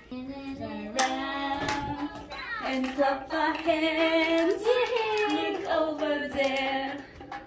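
A voice singing a children's song in long held notes that slide up and down between pitches, with a couple of sharp claps or clicks about a second in.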